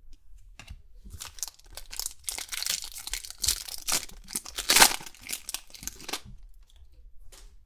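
Foil wrapper of a trading card pack being torn open and crinkled: a dense crackle for about five seconds with one sharp, loud tear about three-quarters of the way through, then a few faint ticks.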